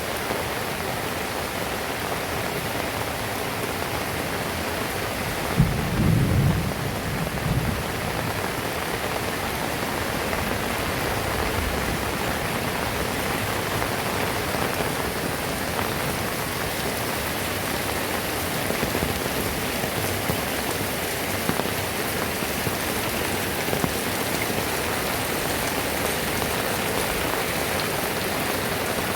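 Heavy rain falling steadily. About six seconds in, a sudden deep clap of thunder rumbles for a couple of seconds.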